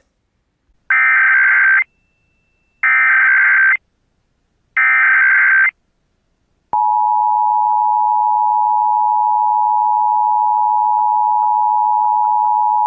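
Emergency Alert System tones: three one-second bursts of SAME digital header data, evenly spaced, then about seven seconds in the steady two-tone EAS attention signal begins, announcing an alert test.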